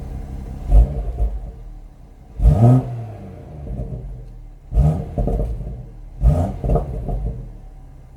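BMW M140i's 3.0-litre turbocharged straight-six idling through its exhaust and blipped five times in short revs. Each rev rises in pitch and falls back to idle, and the second one, about two and a half seconds in, is the longest.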